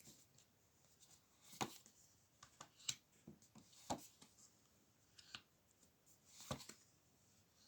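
Near silence broken by a dozen or so faint, scattered light clicks and taps, the clearest about a second and a half in, near the middle and near the end.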